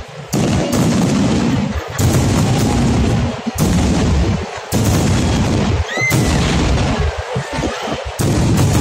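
Aerial fireworks going off in a rapid series of deep booms and crackling bursts, a new salvo starting every second or two, with a brief whistle about six seconds in.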